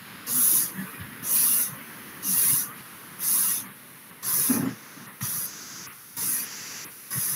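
Forceful breaths through both nostrils, like a blacksmith's bellows: about one hissing breath a second in an even rhythm, heard over a video call. This is the bellows breathing of the sukshma vyayama practice buddhi tatha dhriti shakti vikasak kriya.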